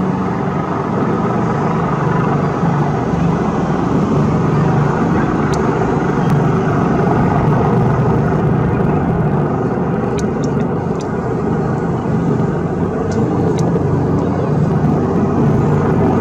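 An HM Coastguard AgustaWestland AW189 search-and-rescue helicopter's rotors and turbines making a steady drone as it flies low along the hillside, with a few faint ticks over it.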